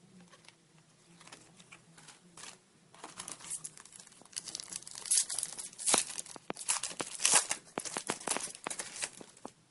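Plastic wrapper of a Topps Chrome baseball card pack being torn open and crinkled by hand, a dense run of crackling starting about three seconds in and loudest near the middle.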